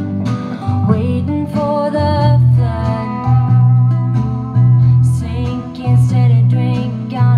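A song with singing over a strong bass line, played through 50 W Class A 807 valve monoblock amplifiers into cheap speakers while the amps are being tested.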